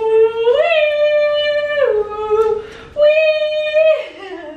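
A woman singing a wordless, sing-song tune in a high voice: long held notes that step up and down between two pitches, with a short break about two and a half seconds in and a downward glide near the end.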